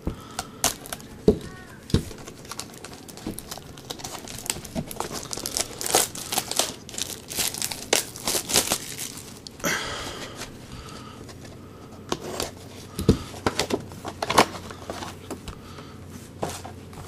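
Plastic and foil wrapping crinkling and tearing as a trading-card hobby box is opened and its packs are handled, with sharp taps and knocks of cardboard in hand. The crinkling is thickest in the middle of the stretch.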